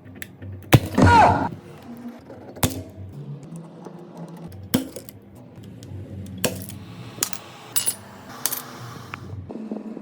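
A series of sharp clicks and clinks of small hard objects, about seven spread over several seconds. The first and loudest is followed by a brief ringing tone that falls in pitch.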